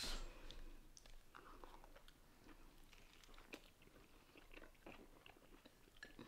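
Faint crunching and chewing of crisp hard taco shells as people bite into and eat them, a scatter of small crackles.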